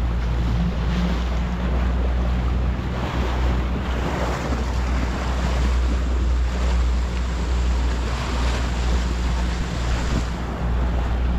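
Boat engine running steadily under way, with water rushing and splashing past the hull and wind buffeting the microphone.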